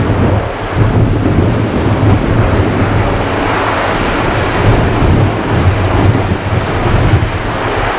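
Airbus A350-1000's Rolls-Royce Trent XWB engines in reverse thrust on the landing rollout: a loud, continuous low rumble with hiss above it, wavering in level.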